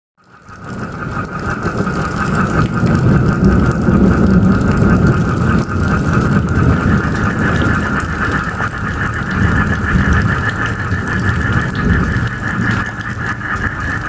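Tropical rain with a dense frog chorus, with a steady pulsing trill over the rain's hiss, fading in at the start. A low rolling rumble of thunder under it is strongest in the first half.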